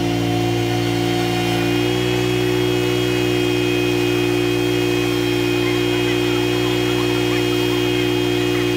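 An engine running steadily, a hum made of several fixed tones that steps up slightly in pitch about two seconds in.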